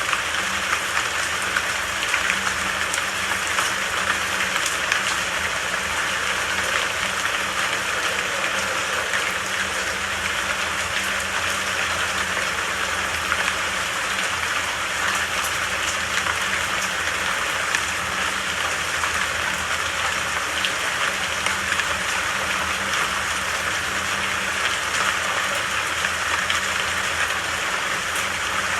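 Steady rain falling, a dense, even hiss of drops with faint scattered pattering.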